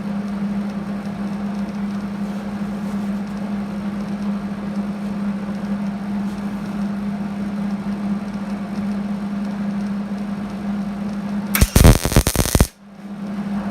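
A steady machine hum, then near the end about a second of loud crackling from a welding arc being struck on the Land Rover chassis dumb iron, which stops abruptly.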